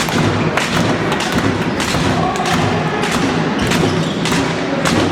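Repeated thumps in a sports hall, two or three a second and slightly irregular, over steady crowd noise.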